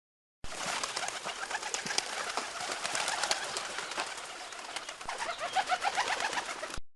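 Pigeons flapping in flight, a dense flutter of wingbeats and sharp wing claps with short cooing notes mixed in. It starts suddenly about half a second in and cuts off abruptly near the end.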